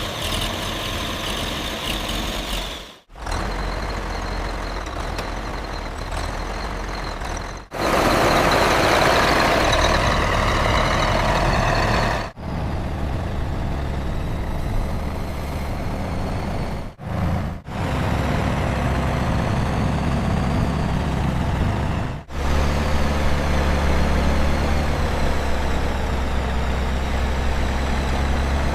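Cement mixer truck's diesel engine running, heard in a string of short segments that cut abruptly, with a loud rushing hiss in the middle.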